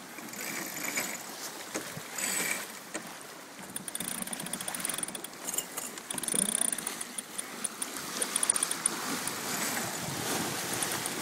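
Water rushing along the hull of a sailboat under way, with gusts of wind noise. From about four seconds in, runs of fast, light, high ticks sound over it.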